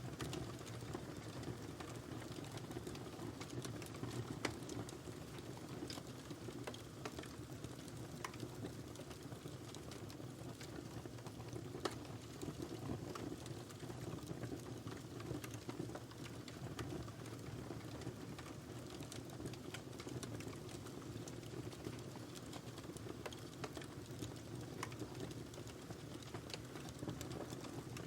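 Wood fire burning in a fireplace: a steady low rush of flame with scattered sharp crackles and pops at irregular intervals.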